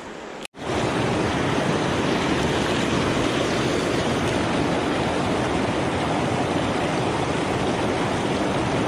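Creek water rushing over rocks in a small cascade close by: a steady, even rush that comes in suddenly and louder about half a second in.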